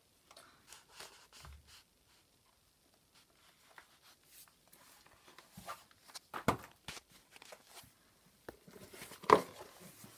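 Black patent T-strap shoes being unbuckled, pulled off and set down on a wooden parquet floor: scattered soft clicks, rustles and knocks, busier in the second half, with a few sharper knocks of the shoes against the floor.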